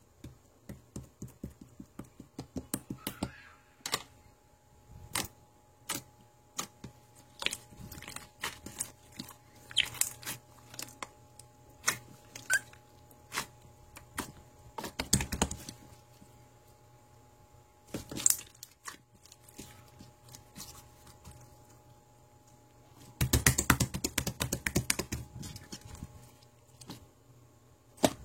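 A string of irregular, sharp clicks and taps, with a dense run of crackling crunches about three-quarters of the way through.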